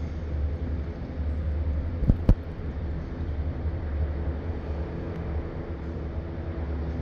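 Indoor pool ambience: a steady low hum and rumble with a hiss over it, as the water is stirred by a floating body being moved. Two sharp knocks come close together about two seconds in.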